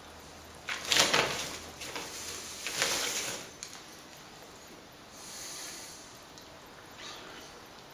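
Scraping and rustling of a broad plastering knife scooping powdered plaster from its paper bag for mixing with damp sand: a sharp swish about a second in, another about three seconds in, and fainter ones later.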